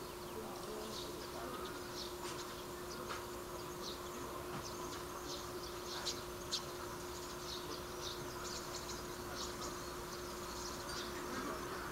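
Small birds chirping at irregular intervals, short sharp high-pitched calls, over a faint steady hum and open-air background noise.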